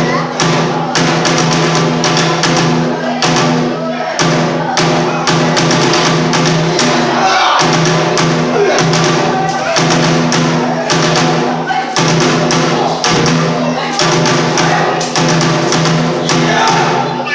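Bitchū kagura accompaniment: rapid, continuous drum strikes over a steady held tone, with a wavering melodic line above.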